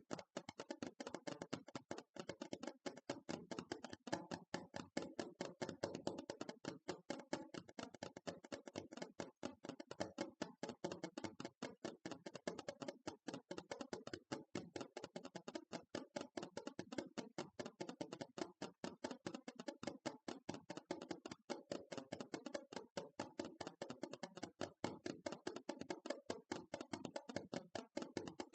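ASMR tapping: fast, steady taps on a hard object, about four to five a second without a break.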